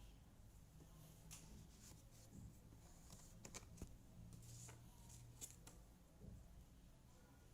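Near silence with a few faint, scattered light clicks of cardboard jigsaw puzzle pieces being handled, over a faint low hum.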